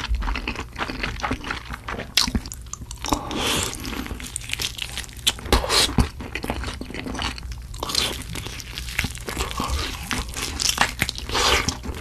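Close-miked crunching and chewing of crispy fried chicken, in irregular crackly bites and chews.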